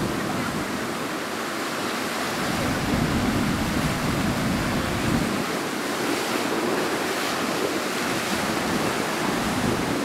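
Rough sea surf breaking over rocks and washing up the beach in strong onshore wind, with wind buffeting the microphone. A steady roar of water that swells a little about three seconds in.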